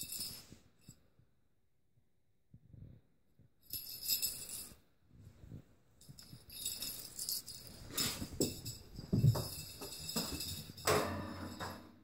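Jingle-bell cat toy ball rattling in bursts as it is shaken, tossed and rolls about, almost continuously in the second half, with a few soft thumps.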